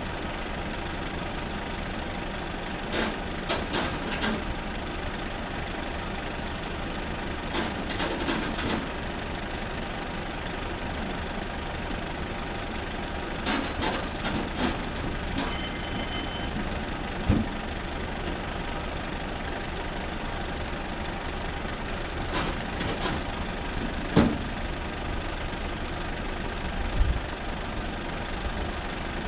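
Nissan NT400 truck's engine idling steadily, with short clusters of clicks and knocks a few times, a brief run of beeps about halfway, and a few single thumps.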